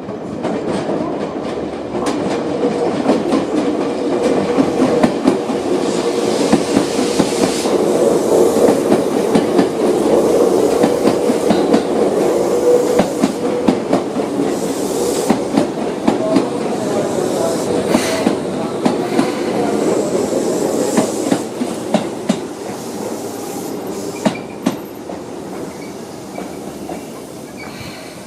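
Seibu New 2000 series electric train, two four-car sets coupled, pulling out of a station: steady running noise with wheels clacking over rail joints. It builds over the first few seconds and fades over the last several.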